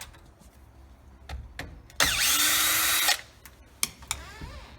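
Power drill running in one burst of about a second at a steady speed, backing out the screws of a door deadbolt being taken apart. A few light clicks come before and after it.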